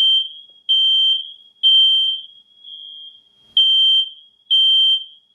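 A fire alarm sounding loud, high-pitched beeps in groups of three with a short pause between groups, the temporal-three evacuation pattern. A fainter alarm tone sounds in the pauses.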